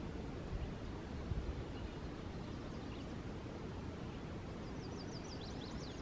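Pond-side outdoor ambience with a steady low rumble on the microphone; near the end a small songbird sings a quick run of high, falling notes, with a few faint chirps before it.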